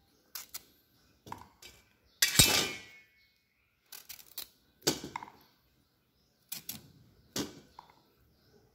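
Knife clicks trimming green bananas and the cut bananas dropping into a stainless-steel basin of water: a series of separate knocks and splashes, the loudest about two seconds in with a short metallic ring.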